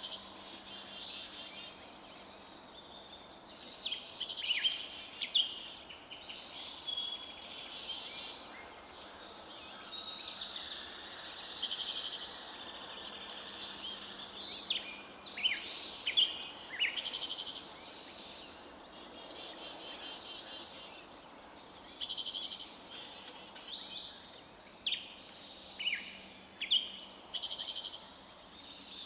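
Several forest songbirds singing and calling at once, overlapping rapid trills and short downward-slurred chirps, with the loudest calls coming in quick separate bursts.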